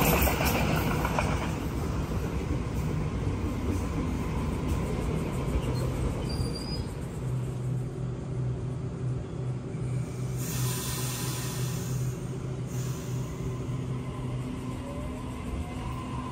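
Sydney Trains Waratah double-deck electric train rolling in along the platform and slowing to a stop, then standing with a steady low hum. A burst of air hiss comes about ten seconds in, and a shorter one a couple of seconds later.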